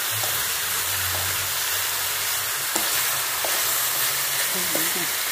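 Pangasius catfish steaks and pork pieces sizzling steadily in oil in a steel wok while wooden chopsticks stir them, with a few light clicks of the chopsticks against the pan.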